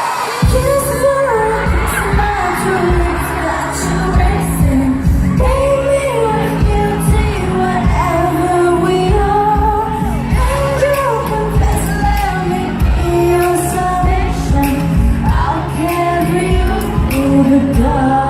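Pop song with a singer's melody over a heavy, steady bass beat, kicking in about half a second in.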